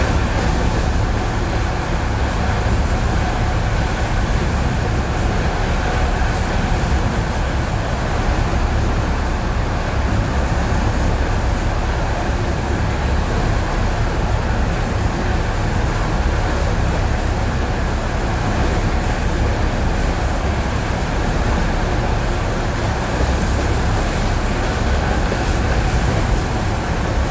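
ED9E electric multiple unit running on jointed rail track: a steady, loud rumble of wheels on rails, with no change in speed or level.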